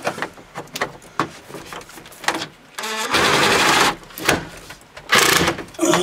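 A power wrench running in two short bursts to back out bolts, the first about three seconds in and lasting most of a second, the second shorter about a second later. Light clicks and clanks of tools on metal come in between.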